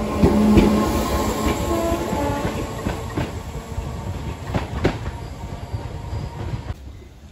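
Merseyrail electric multiple unit running past close by and away, its wheels clicking over the rail joints, the sound fading as it goes.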